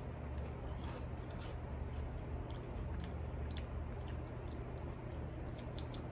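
A person chewing wavy-cut potato chips: irregular crisp crunches scattered through the chewing, over a steady low hum.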